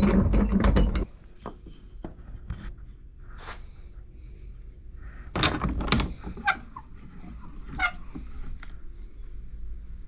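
A loud, steady noise that cuts off suddenly about a second in, then scattered knocks and thunks of wood and tools being handled on a workbench, the loudest cluster a little past halfway.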